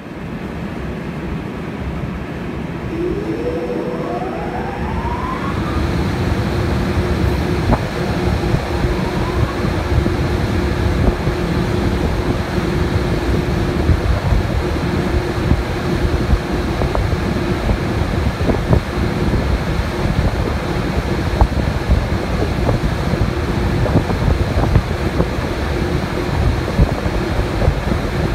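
EH500 electric locomotive's cooling blowers starting up: a rising whine about three seconds in settles into a steady hum, over a loud rush of air that builds through the first several seconds. Scattered ticks sound throughout.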